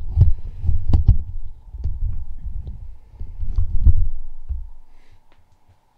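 Handling noise from a camera being moved and set in place: irregular low thumps and bumps with a few sharp clicks, dying away about five seconds in.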